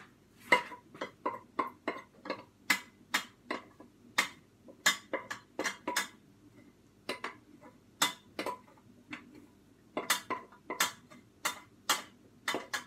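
Kitchenware clinking and knocking as a pot is emptied out: a run of sharp, irregular clicks, two or three a second, with a couple of short pauses.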